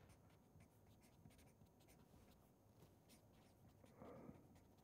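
Faint scratching of a felt-tip marker writing on paper, with a brief soft sound near the end.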